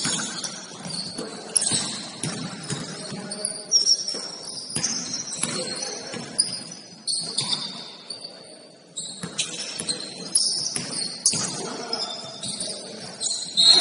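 Basketball game on an indoor court: the ball bouncing in irregular thuds, with many short high-pitched sneaker squeaks on the floor.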